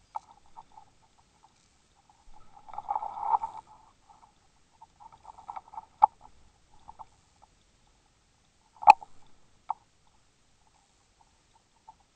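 Underwater crackling and clicking picked up by a submerged camera on a fishing line. It comes in scattered bursts, with a dense crackle about three seconds in, a sharp click about six seconds in and a louder one near nine seconds.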